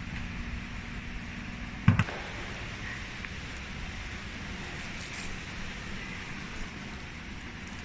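Handling noise from cables and plastic-wrapped machine parts being moved about, with a sharp double knock about two seconds in, over a steady low hum.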